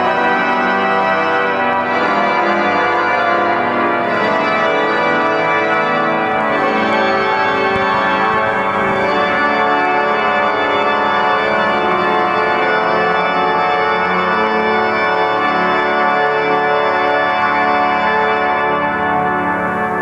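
Cathedral pipe organ playing a full passage of held chords that shift from one to the next, at a steady loudness.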